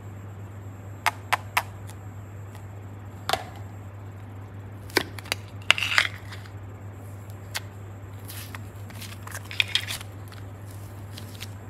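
Hands handling a plastic popsicle-shaped mold and pink fluffy slime: scattered sharp clicks and taps from the mold being handled and opened, then crackly squishes about ten seconds in as the slime is squeezed, over a faint steady low hum.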